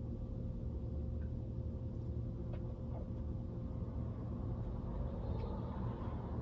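Steady low hum of a car's idling engine, heard from inside the parked car's cabin, with a few faint ticks.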